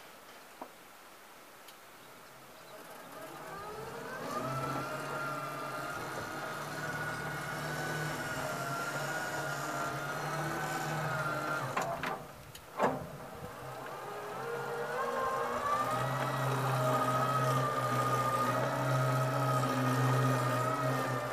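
A homemade electric small tractor's electric drive whining as it pulls a train of three farm wagons. The whine rises in pitch about three seconds in and holds steady. A little before halfway it breaks off with a sharp knock, then rises again and holds.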